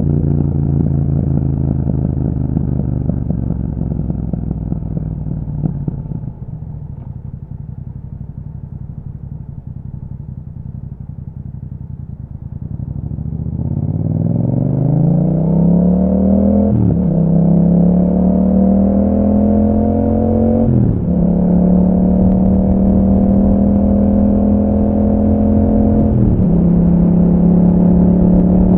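Yamaha MT-07's 689 cc parallel-twin engine through an Akrapovič exhaust, slowing and dropping to a low idle, then accelerating from about halfway, the pitch rising and dropping sharply at three upshifts before holding at a steady cruise.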